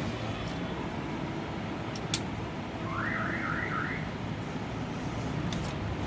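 Steady background noise of vehicles and surroundings, with a sharp click about two seconds in and, about three seconds in, a brief warbling chirp of four quick rising sweeps like an alarm.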